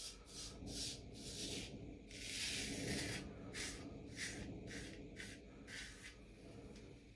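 Harlex straight razor scraping through lathered beard stubble in a run of short strokes, about a dozen, with one longer stroke about two seconds in.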